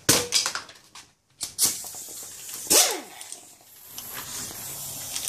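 Sharp knocks and clatter, then a dog's short bark with a falling pitch about three seconds in. A steady hiss builds near the end.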